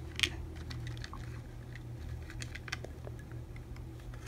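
Light plastic clicks and rattles from the small RC truck's body shell being unclipped and lifted off its chassis. A few faint clicks are spread through, with a sharper click at the very end, over a low steady hum.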